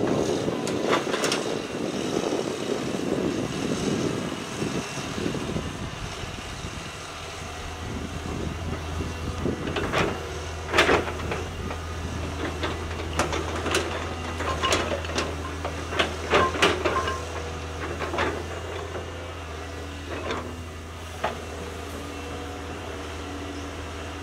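Caterpillar 320C hydraulic excavator clearing brush: its diesel engine runs with a rough noisy rush for the first few seconds, then settles to a steady low hum. From about ten seconds in, sharp cracks and knocks come in clusters as brush and small trees are broken by the bucket.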